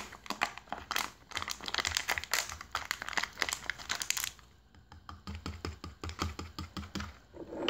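Plastic packaging crinkling as it is handled, a dense run of small irregular crackles that dies away about four seconds in, leaving a few faint low knocks.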